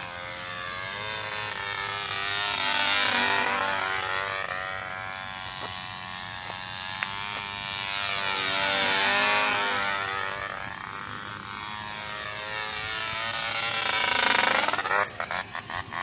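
Radio-controlled U-Trenér model airplane flying past, its motor and propeller note swelling and then dropping in pitch as it sweeps by, three times.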